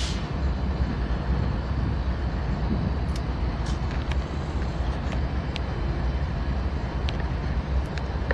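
Steady low rumble of idling diesel freight locomotives, with a few faint sharp ticks scattered through it.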